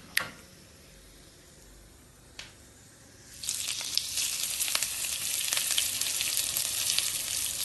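A hot coconut-oil tempering of mustard seeds, dried red chillies and curry leaves, poured onto a yogurt-based pineapple pachadi, sizzling and crackling loudly from about three and a half seconds in. Before that come a few sharp clicks from the pan.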